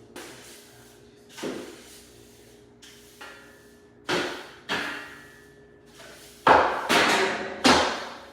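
A series of separate thumps and knocks, about six in all, with the loudest three coming close together near the end.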